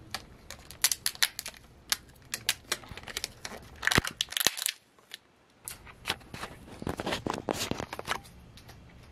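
A paper strip being crinkled and torn close to the microphone: a string of sharp crackles and rips, with a short quiet gap about five seconds in before the crackling starts again.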